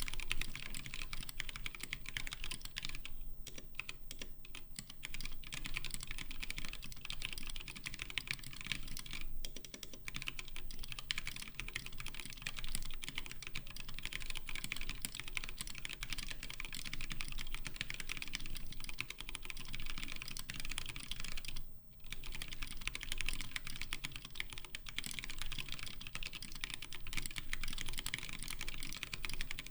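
Fast continuous typing on a Skyloong GK64S 60% aluminium mechanical keyboard with Gateron red linear switches and DSA profile keycaps: a dense patter of keystrokes with a few brief pauses, one clear gap about 22 seconds in.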